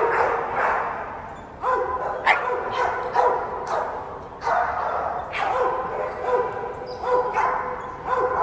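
Dogs barking and yipping over and over, each call starting sharply, roughly once a second, some held a little longer like a whine.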